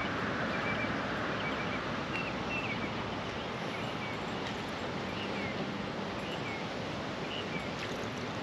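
A steady outdoor wash of wind and water noise, with short, faint bird chirps scattered through it.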